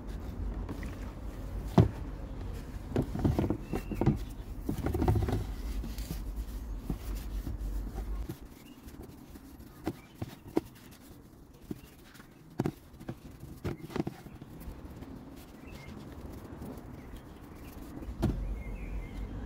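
Handling noise from wiping a metal motorcycle engine guard with a wet paper towel: rubbing and rustling, with scattered light clicks and knocks as the bar and bottle are handled. A low rumble runs under the first half and drops away about eight seconds in.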